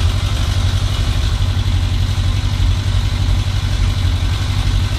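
Honda CB1000 inline-four engine idling steadily while it warms up after a cold start on the choke. The owner says this engine knocks when cold and the knock goes away once it is warm.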